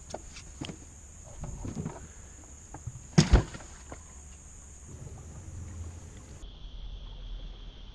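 Two heavy thumps a quarter-second apart against the hull of an aluminum jon boat about three seconds in, the loudest sound here, with a few light clicks and knocks of tackle being handled before them.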